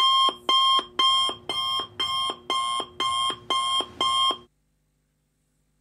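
Electronic alarm beeping like an alarm clock: nine short, even beeps at about two a second, stopping about four and a half seconds in.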